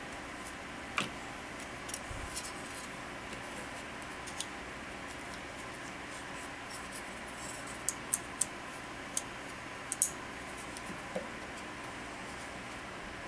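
Scattered small clicks and light scrapes of hands working screws and a screwdriver on a plastic AK hand guard, several quick ticks together about two-thirds of the way in, over a steady background hiss.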